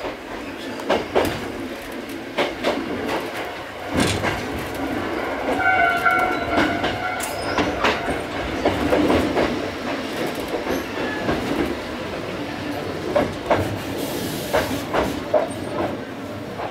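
Choshi Electric Railway electric railcar rolling slowly into a terminus station, heard from the driver's cab: steady running noise with irregular clicks and knocks as the wheels cross rail joints and points. A short high squeal rings out about six seconds in.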